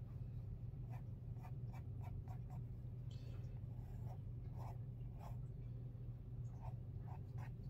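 Sakura Gelly Roll white gel pen scratching across heavyweight black mixed media paper in quick, short hatching strokes, over a steady low hum.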